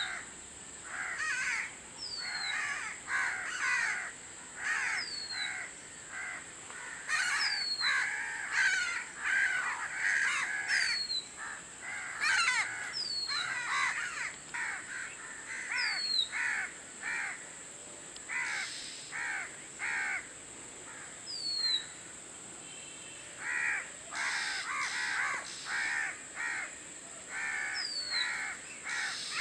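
Oriental magpie-robin singing: short phrases of scratchy, harsh notes, mixed with a clear whistle that slides down in pitch, repeated every second or two.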